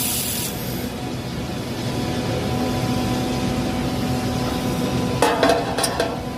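Steady hum of machinery in a welding workshop, with a short hiss at the very start and several sharp metallic clanks about five seconds in.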